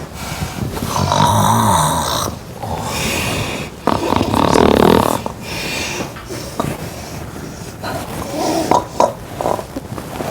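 A person snoring loudly in bed: three long, rasping snores in the first five seconds, then quieter breathing with a few snorts.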